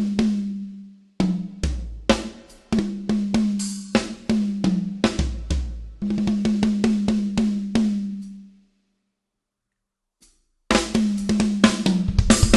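Acoustic drum kit with the newly added PDP Concept Maple 8-inch tom, played in a sound check. Single tom and drum hits ring out with a clear pitched tone, with bass drum kicks among them and a quick run of strokes around the middle. After a pause of about two seconds near the end, the full kit comes in with bass drum, snare, hi-hat and cymbals.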